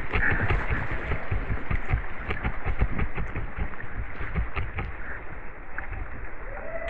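Seawater sloshing and lapping around a kayak, with frequent low thumps and a few sharp clicks.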